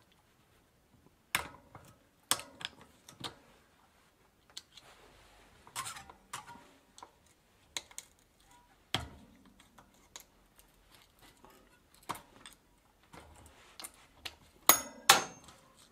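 Scattered small metal clicks and scrapes as a screwdriver pries at the spring clip holding the sprocket on a Sturmey Archer 3-speed hub. Near the end the clip springs free and is launched off with a sharp, ringing metallic clatter, the loudest sound here.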